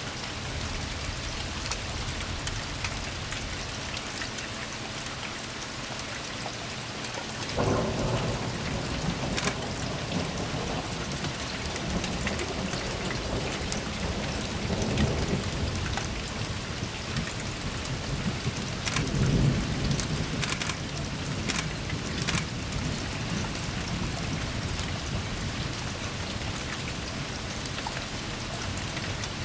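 Steady rain falling, an even hiss with scattered drop ticks. Low rumbles swell and fade from about a quarter of the way in.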